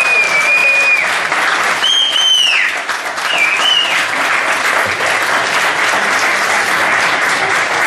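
Guests applauding, a steady dense clapping with a few high cheers over it.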